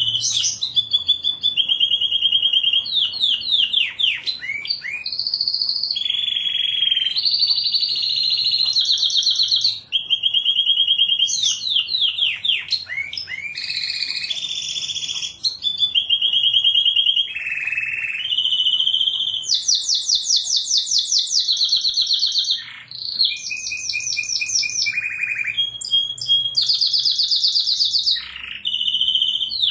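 Domestic canary singing a long, unbroken song of rapid trills and rolls. Each run of quickly repeated notes gives way to another at a different pitch every second or two.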